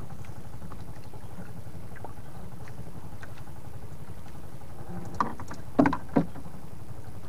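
Steady low rumble of a small fishing boat on the sea, with three or four sharp knocks about five to six seconds in.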